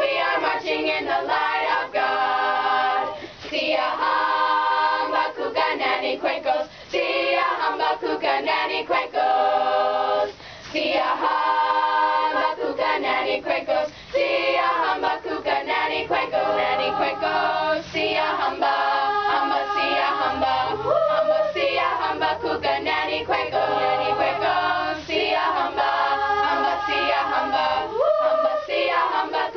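Student chorus of teenage voices singing unaccompanied in parts, with brief breaks between phrases every few seconds.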